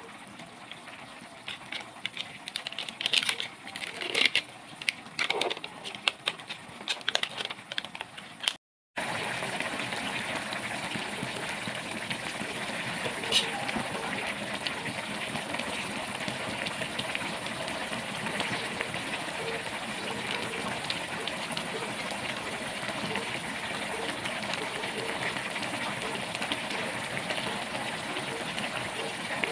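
A plastic curry roux sachet crinkling and rustling in the hands, in short sharp bursts. After a sudden cut, a pot of pork and vegetable broth boils at a steady, even bubble, with one light tap a little after the cut.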